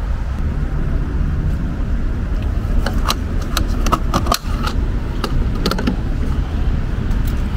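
A car's fuel door being opened and its screw-on gas cap twisted off: a run of sharp clicks over a few seconds in the middle, over a steady low rumble.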